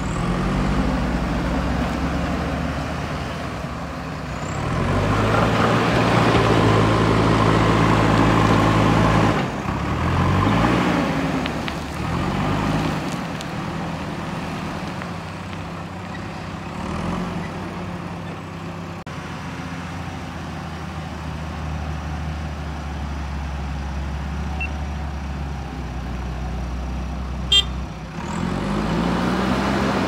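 JCB 3DX backhoe loader's diesel engine working under load, revving up and down several times as the front bucket scoops and lifts gravel, loudest for a few seconds early on, then running lower and steadier before revving up again near the end. A single sharp click sounds shortly before the end.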